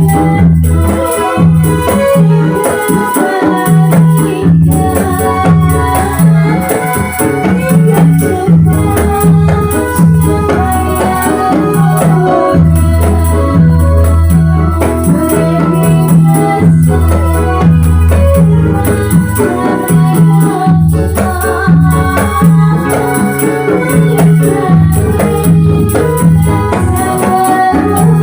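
Instrumental Ndolalak dance music: an electronic organ carries the melody over a repeating bass line, with steady jingling rattle percussion.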